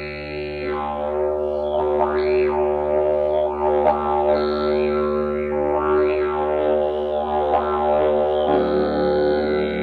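Carbony slide didgeridoo played as a steady low drone, with overtones sweeping up and down as the player shapes the sound with mouth and voice. The tone changes near the end. It echoes in a long rock road tunnel.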